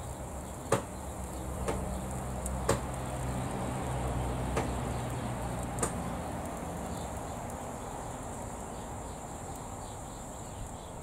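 Low electrical hum from an air fryer's heating element run hot on mains power, fading somewhat after about six seconds. A handful of sharp ticks come roughly a second apart during the first six seconds.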